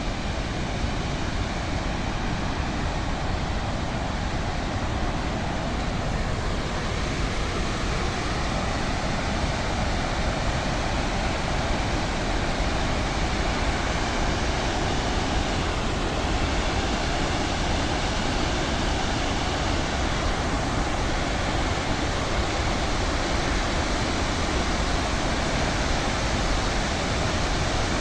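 Rushing water: a steady, dense wash of noise with no breaks or changes.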